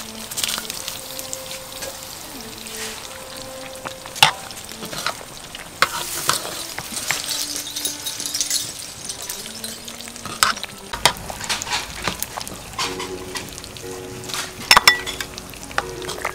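Shrimp and basil broth boiling hard in a metal pot, bubbling and crackling, while a ladle stirs it and clinks against the pot a few times.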